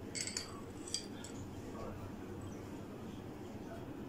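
A few light clinks of a metal teaspoon against glass bowls as spice powder is scooped and tipped in, in the first second or so, then quiet room tone.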